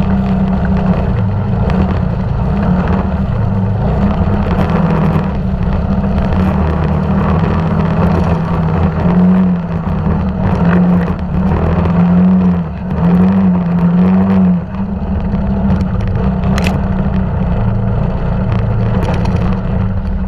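ATV (quad bike) engine running hard along a muddy trail, the throttle opened and closed in a run of revs about halfway through.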